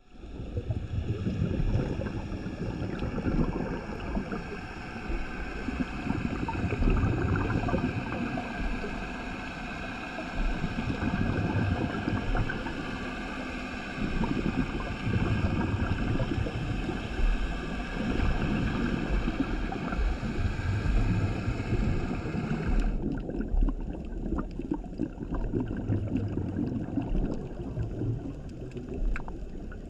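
Scuba regulator breathing underwater: low bubbling rushes of exhaled air swell and fade in long cycles of several seconds. A steady high hiss runs under it and cuts off suddenly about three-quarters of the way through.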